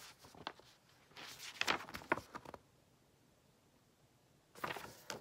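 Folded paper brochure being unfolded and handled: a stretch of paper rustling about a second in, a quiet spell, then another short rustle near the end.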